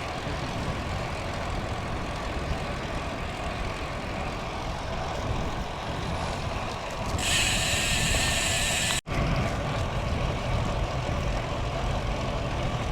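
Strong wind buffeting a bike-mounted action camera's microphone during a road bike ride, a steady low rumble. About seven seconds in a brighter hiss rises for roughly two seconds, then the sound cuts out for a moment.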